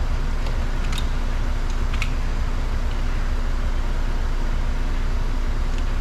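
Steady low hum and hiss of body-shop background noise, with two faint sharp clicks about one and two seconds in as the plastic trim cover in front of a 2018 Honda Accord's door mirror is pried off with a flathead screwdriver.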